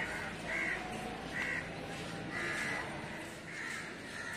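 Crows cawing repeatedly, about one call a second, with one longer call near the middle.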